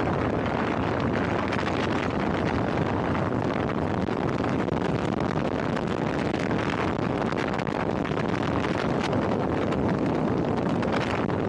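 Steady noise of a moving vehicle with wind rushing over the microphone.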